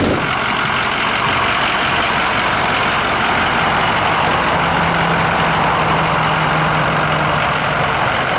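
Steady noise of a truck engine idling, with a faint low hum that comes and goes.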